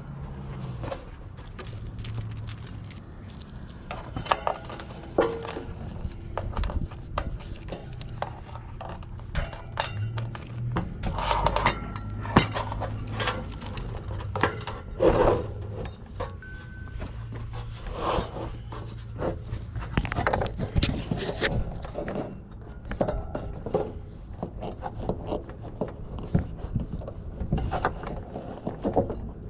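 Irregular clicks, rattles and scrapes from handling a heat pump's plastic condenser fan top and feeding the new fan motor's wiring conduit through its grille, over a low steady hum.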